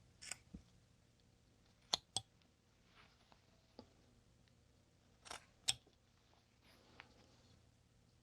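Carving knife cutting into a small basswood block: scattered sharp snicks and short scraping slices as chips are pared off the nose, loudest as pairs of snaps about two seconds and five and a half seconds in.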